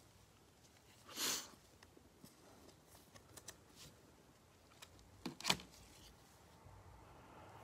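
Baseball cards and a clear plastic card holder handled by gloved hands: a short rustling swish about a second in, scattered small taps, and two sharper clicks around five and a half seconds in.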